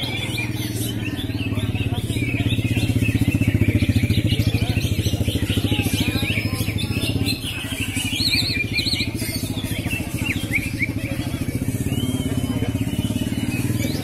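A small engine running steadily close by, its pulsing sound swelling louder a couple of seconds in and easing after about seven seconds. Over it, caged greater green leafbirds sing a continuous stream of high chirps and whistles.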